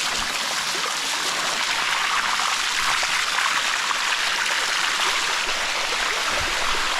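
Water of a cascading waterfall running over rock close to the microphone: a steady, even rush.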